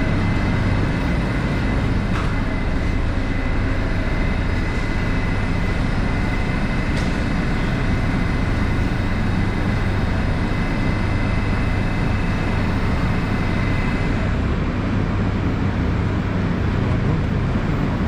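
Moscow Metro 81-775/776/777 train standing at a platform with its doors open: a steady low hum with a thin high whine over it that stops about fourteen seconds in.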